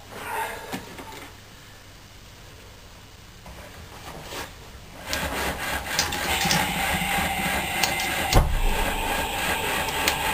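Rhombic-drive Stirling engine starting up on its electric (battery-driven) start about five seconds in, then running with a fast, steady mechanical clatter; one sharp knock about eight seconds in.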